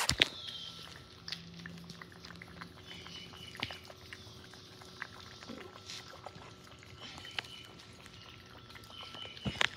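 A cat lapping and eating at its bowls, a run of small irregular wet clicks, while a hand strokes its fur. A brief loud rustle of handling comes at the start and again near the end.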